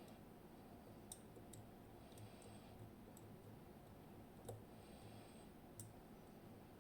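A handful of faint, sharp clicks with soft scraping between them: a lock pick working the tapered security pins of a TESA T60 cylinder under tension.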